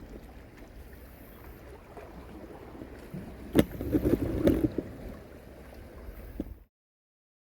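Wind buffeting the microphone, a low rough rumble, with a couple of sharp knocks about halfway through; the sound cuts off to silence near the end.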